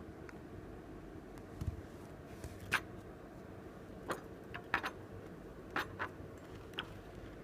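Light clicks and taps of small objects being handled on a work surface, about seven of them at irregular intervals, over a faint steady hum.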